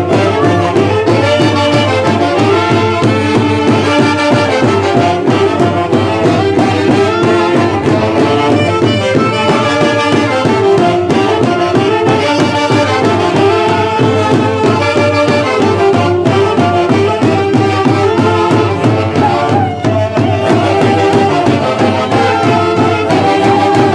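Andean festival band of saxophones and brass over a steady drumbeat, playing a lively traditional dance tune.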